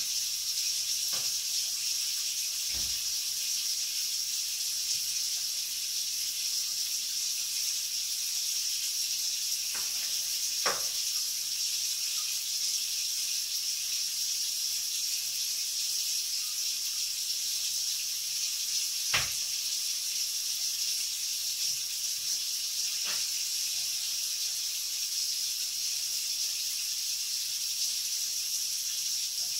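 Steady high hiss throughout, with a handful of light clicks and knocks from work with kitchenware, the sharpest about two-thirds of the way through.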